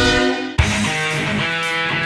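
A held multi-tone horn blast fades out in the first half-second. After a sharp click, rock music with electric guitar begins.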